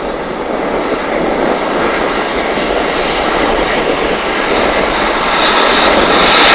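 Peppercorn A1 three-cylinder Pacific steam locomotive 60163 Tornado approaching at speed, a steady roar that grows louder near the end.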